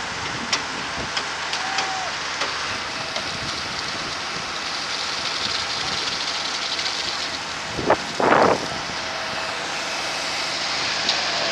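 Steady machine noise from a small VOLT concrete pump pumping concrete, with scattered light knocks in the first few seconds and one short, loud burst about eight seconds in.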